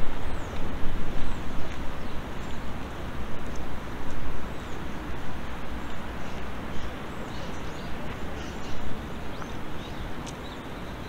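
Steady low rumble of wind outdoors, rising and falling, with small birds singing many short, high chirps throughout.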